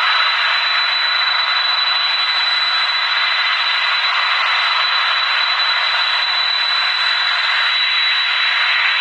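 Jet airliner engines running, a steady hiss with a constant high-pitched whine over it.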